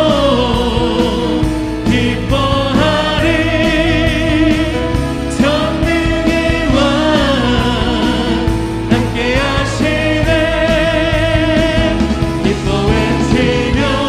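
Contemporary worship song in Korean: leaders and congregation singing together over band accompaniment led by keyboard, with a steady beat.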